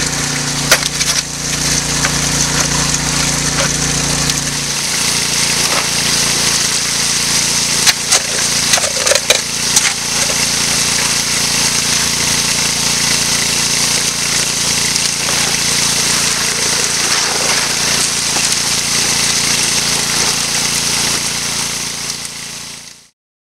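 A highbanker's small gas-engine water pump running steadily, with water rushing through the sluice and a few sharp knocks of rock. The engine hum drops partly about five seconds in, and everything fades out near the end.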